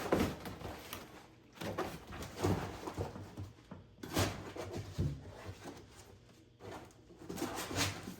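Packages of a sanding kit (sandpaper and rotary pads) being handled and set down: irregular rustling with light knocks every second or so.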